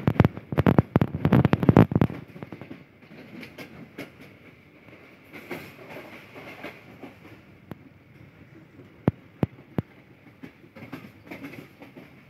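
Passenger train running at speed, its wheels clacking over the rail joints: a quick run of sharp knocks in the first two seconds, then a quieter steady rumble with a few single clicks.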